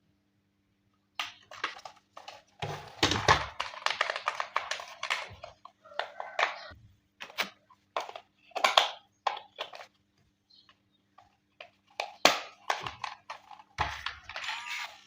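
Toy packaging being handled during an unboxing: irregular rustling, scraping and tapping of cardboard and plastic, in clusters with short pauses.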